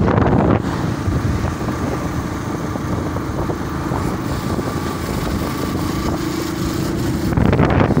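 Motorcycle engine running steadily under way, with road and wind noise. It gets louder for a moment at the start and again near the end.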